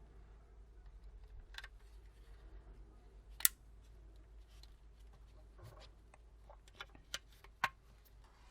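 A few sharp clicks and small handling knocks as a phone's parts are pressed and clicked back into place during reassembly; the loudest click comes about three and a half seconds in, with two more near the end.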